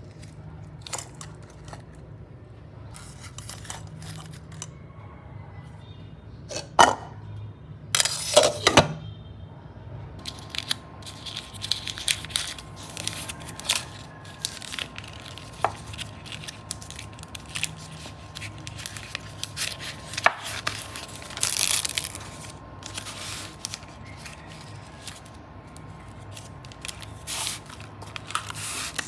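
Handling sounds: rustling and tearing of packaging with scattered clicks and knocks, over a low steady hum. From about ten seconds in, a faint steady whine runs underneath.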